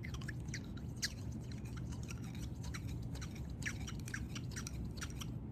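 Irregular small clicks and rubbing scrapes from handling a Glock barrel and its cleaning rod with patch, over a steady low hum.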